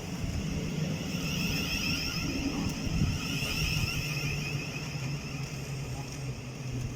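Thameslink Class 700 electric train pulling into the platform: a steady electric whine over a low hum, the hum dropping slightly in pitch partway through as it slows.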